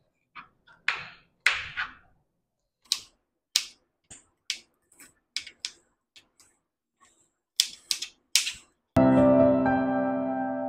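Kitchen knife dicing an onion on a cutting board: irregular sharp knocks of the blade striking the board, about fifteen of them with a short pause partway through. Piano music starts about nine seconds in.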